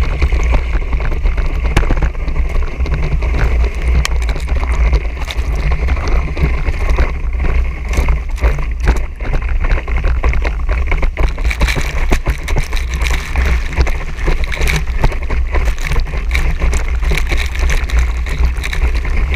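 Loud, steady rush of wind buffeting the microphone and water spraying off water skis being towed at speed, with a deep rumble and many small knocks and splatters throughout.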